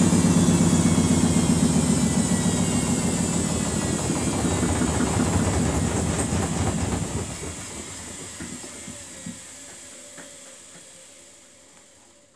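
Samsung WF80F5E0W4W front-loading washing machine winding down from its final spin: the motor whine and drum rumble fall in pitch and fade away over several seconds. A few faint clicks come near the end as the drum slows to a stop.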